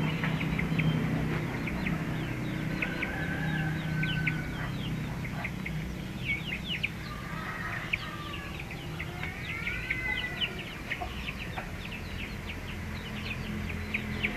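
Farmyard birds calling: many short, rapid chirps throughout, with a few longer arching calls about a quarter of the way in and again past the middle, over a low steady hum.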